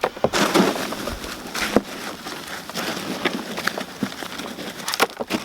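Dry compost rustling and pattering as hands dig through a potato container, with a few sharp clicks of clods or potatoes knocking.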